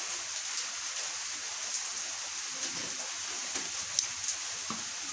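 Sparse small metallic clicks and taps from hands and a small tool fitting and tightening a gearshift part inside an opened 100cc four-stroke motorcycle gearbox, the sharpest about four seconds in, over a steady hiss.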